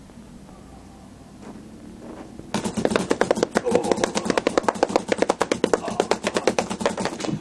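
Paintball pistol firing a rapid burst of sharp pops, about nine a second, starting about two and a half seconds in and stopping abruptly near the end.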